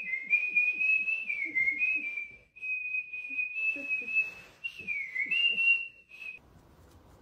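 A woman whistling a tune, one high line of notes stepping up and down in pitch, that stops about six seconds in.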